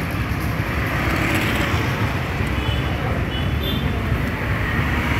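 Steady road traffic noise: a constant rumble and hiss with no breaks, with a few faint, short high-pitched tones a little past the middle.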